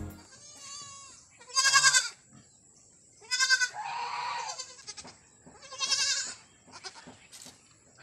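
Goat kids bleating: four high, quavering bleats about two seconds apart, the third lower and longer.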